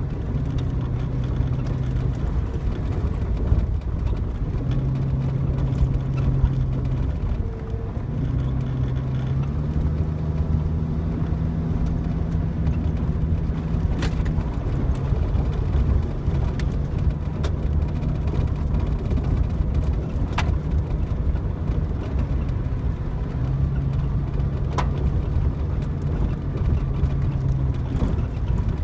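Jeep Cherokee XJ driving slowly over a rough, wet dirt road, heard from inside the cab. The engine drones steadily, its pitch stepping up and down, with a few sharp clicks or knocks along the way.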